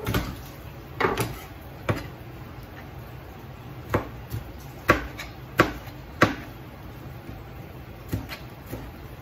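Kitchen knife chopping on a cutting board: about ten sharp chops at uneven intervals, with pauses of about two seconds between groups.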